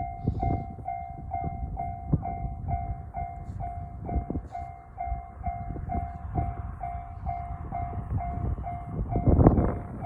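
Japanese level-crossing warning bell ringing its 'kan-kan' about three times a second, over the rumble and wheel knocks of a passing Tokaido Main Line electric train. A louder rush of train noise builds near the end.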